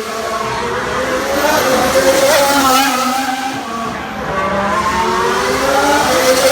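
Formula 1 V6 turbo-hybrid engines running on track, their pitch rising and falling several times as the cars accelerate and slow through the corners.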